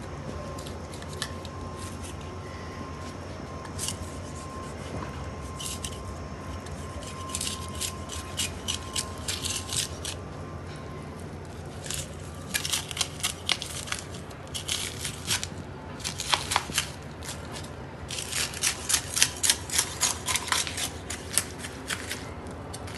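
Knife cutting and scraping through a large kingfish (narrow-barred Spanish mackerel) as it is filleted: clusters of quick, crisp strokes, a few per second, starting about a third of the way in and loudest near the end.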